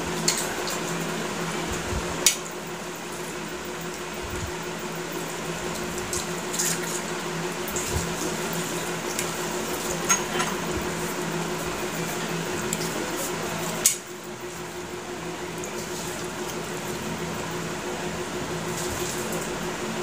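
Eating with the hands from stainless steel plates: fingers mixing and scraping rice and fish curry against the steel, with a few sharp clinks of the plates. A steady low hum runs underneath.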